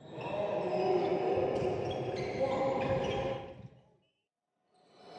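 Volleyball rally sounds in a sports hall: ball hits, players' shoes on the court and shouting. The sound fades in, fades out after about three and a half seconds, and after a short silence the next rally fades in near the end.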